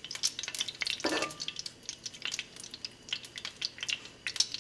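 Dried bay leaves frying in hot oil in a skillet: a light sizzle with many small, irregular crackles and no big popping, since the dried leaves hold no moisture.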